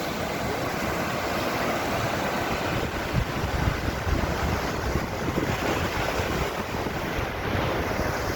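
Sea surf washing onto a beach, with wind buffeting the microphone in low rumbling gusts, strongest about three to five seconds in.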